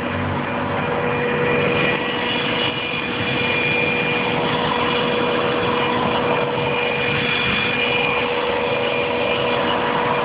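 1998 Subaru Outback's 2.5-litre flat-four engine idling, heard from underneath, with a steady whine from the bottom of the engine that sounds almost like a pump running. The owner cannot tell whether it is a pump, a bearing or a pulley.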